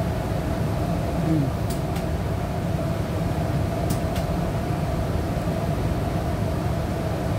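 Steady drone of a ship's diesel generators running, heard in the engine control room, with a constant hum over it and a few faint clicks. The just-started No.3 generator, a six-cylinder engine at about 900 rpm, is warming up unloaded before being put on load.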